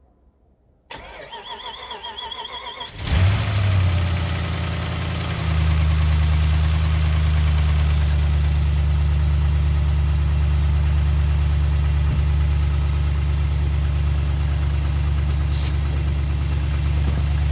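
Jeep Grand Cherokee WJ's 4.7-litre V8 cold-started at about −10 °C after some six months standing: about a second in the starter cranks rhythmically for roughly two seconds, then the engine catches almost at once with a loud flare and settles into a steady idle.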